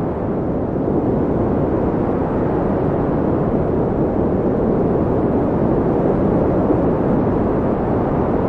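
Steady wind: a low, even rushing noise with no distinct gusts.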